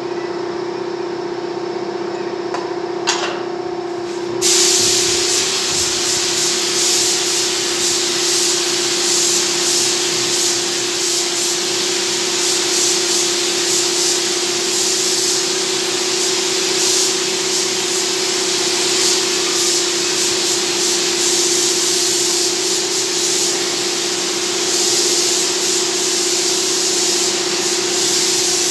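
Gravity-feed air spray gun hissing steadily as it sprays paint onto a CNC-cut MDF panel, starting about four seconds in after a short knock. A steady motor hum runs underneath.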